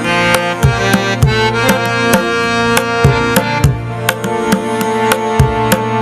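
Background music: a steady drum beat, about two strikes a second, under sustained melodic tones.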